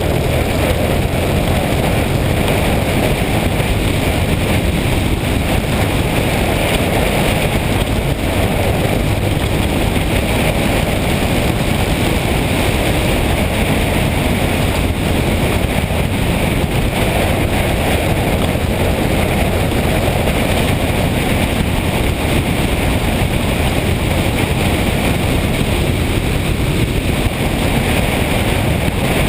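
Motorcycle under way at a steady speed: an even engine hum and road noise mixed with wind on the microphone.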